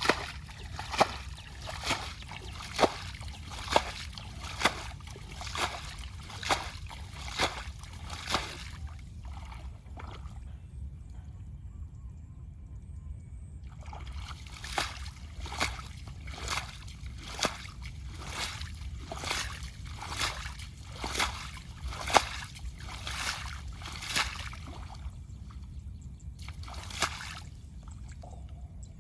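Water splashing and sloshing in a steady rhythm of about one stroke a second, with a pause of several seconds midway. A steady low rumble runs underneath.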